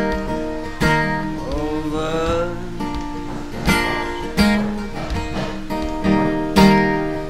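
Acoustic guitar strummed steadily, with a Hohner harmonica in a neck rack playing a sustained melody over it. The harmonica bends notes upward about two seconds in.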